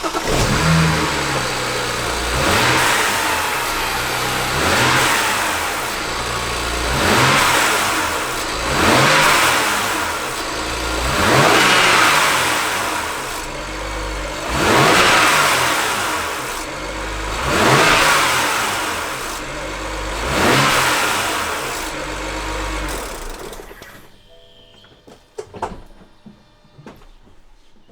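BMW N54 twin-turbo straight-six revved about eight times in a row, each blip rising and falling, with a rattle as the revs drop on the overrun. The owner takes the rattle for the infamous turbo wastegate rattle. Near the end the engine shuts off, followed by a few faint clicks.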